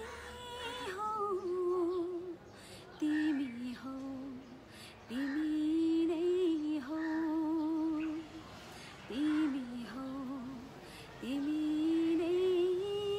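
A woman singing unaccompanied, holding long notes with a wavering vibrato, in several phrases with short breaks between them.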